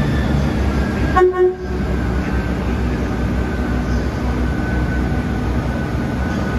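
ScotRail Class 158 diesel multiple unit's engines rumbling steadily, with one short toot of its horn about a second in.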